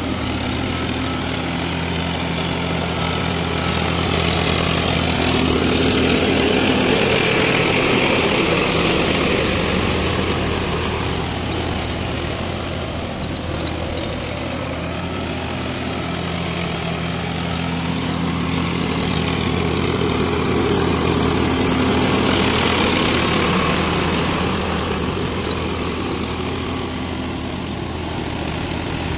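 Small farm tractor's diesel engine running steadily under load while pulling a rotavator through wet paddy soil to puddle it for rice planting. The engine grows louder and fades back twice.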